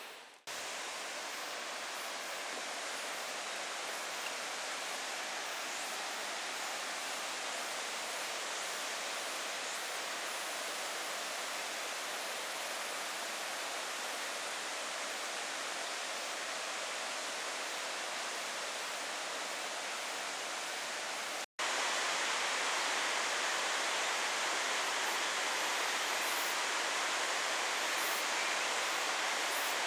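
Steady rush of water from a waterfall. It drops out briefly twice, just after the start and about 21 seconds in, and is louder after the second break.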